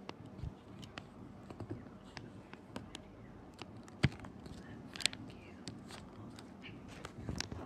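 Ceiling fan running with a steady low hum, with scattered irregular clicks over it and two sharper knocks about four and five seconds in.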